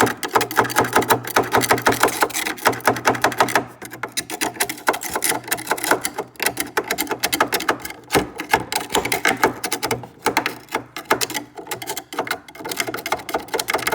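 A sharp tool rapidly chipping and scraping at ice built up in a Kenmore refrigerator's ice-maker compartment, many quick strokes a second, with short breaks about four seconds in and again about eight seconds in.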